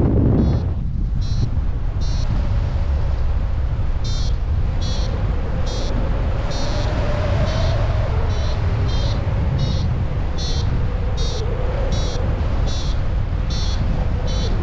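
Wind buffeting the microphone in flight. Over it a paragliding variometer gives short high beeps, steadily about one and a half a second from about four seconds in.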